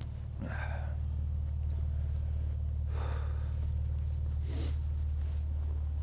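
Steady low hum of an idling SUV engine, with three short breath sounds over it.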